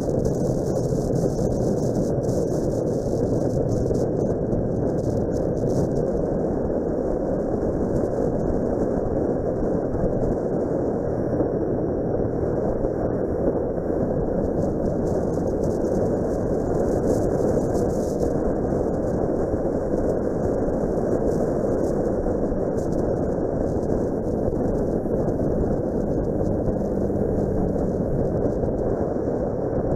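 Steady wind rush on the microphone mixed with the running of a Suzuki Grasstracker Big Boy's 250 cc single-cylinder engine at cruising speed, picked up by a motorcycle-mounted dashcam.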